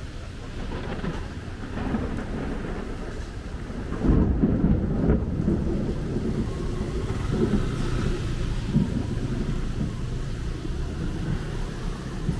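Thunder rumbling over steady heavy rain, building about two seconds in, loudest about four seconds in, then rolling on.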